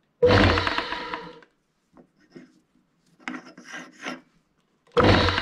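Old woodworking lathe switched on at its slowest speed: the electric motor and spindle start with a loud, rough rasping hum that dies away after about a second, and start up the same way again near the end. The rough running is taken by the owner as a bad sign.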